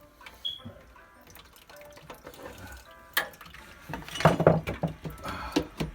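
Water dripping and splashing from a leaking joint on a newly fitted central heating water pump, mixed with clinks and knocks of metal parts and tools being handled. The loudest clatter comes about four seconds in.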